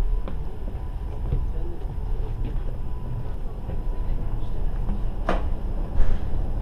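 Steady low rumble of a passenger ferry's engines heard inside its saloon, with a sharp click about five seconds in.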